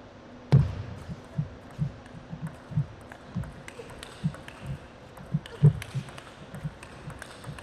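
Table tennis rally: the plastic ball clicks off the rackets and the table in a quick back-and-forth, about two hits a second. The first hit comes about half a second in, and a sharper hit comes near the six-second mark.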